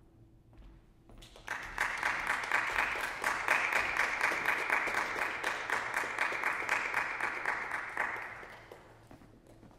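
Audience applauding, starting about a second and a half in and fading out near the end.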